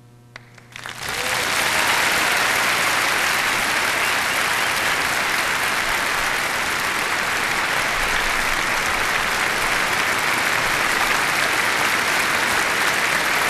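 Audience applause: a few scattered claps, then within a second a full, steady round of clapping from a large crowd.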